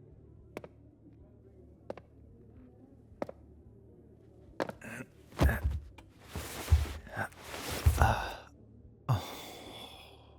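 A man's footsteps, three soft taps about a second and a half apart, then a man's heavy sighs and breaths in the second half.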